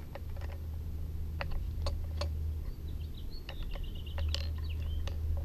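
Sharp, irregular clicks and taps of a flat screwdriver working at the plastic gas-adjust knob on a Bernzomatic TS3000 torch's brass valve, prying to get the knob off. Through the second half a high, wavering squeak-like tone runs among the clicks, all over a steady low rumble.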